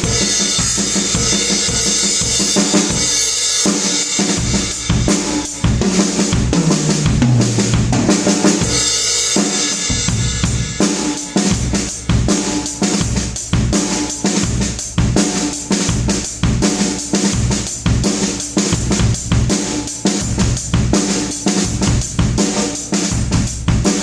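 Loud drum-led music: a steady pattern of bass drum, snare and cymbals, with a bass line and other pitched parts underneath.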